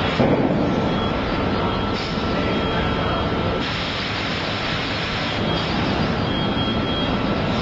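Steady drone of industrial machinery: an even, continuous noise with faint thin whining tones above it.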